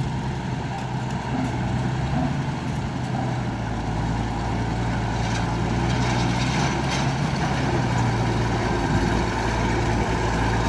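Road roller's diesel engine running steadily, with a deeper rumble joining about four seconds in and the sound growing a little louder.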